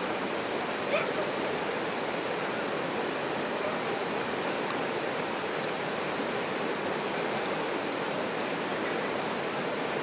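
River rapids: fast water rushing and splashing over rocks in a steady, unbroken rush, with one brief sharper sound about a second in.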